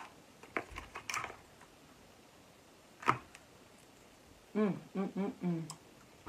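King crab shell cracking and snapping as it is broken apart by hand: a few sharp cracks in the first second, and another about three seconds in. Near the end, a person hums a short run of 'mm' sounds.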